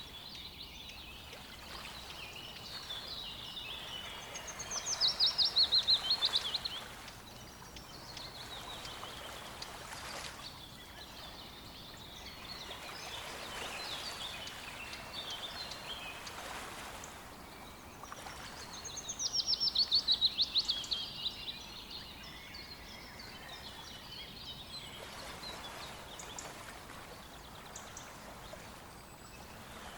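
Songbirds singing, with one bird giving a loud, fast trilled song that falls in pitch, twice, about fourteen seconds apart. Other birds chirp throughout over a steady hiss of running water.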